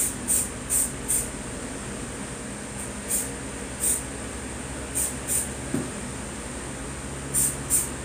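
Aerosol spray-paint can fired in short bursts, about nine quick hisses in pairs and threes, sprayed close onto a paper tool held against the canvas.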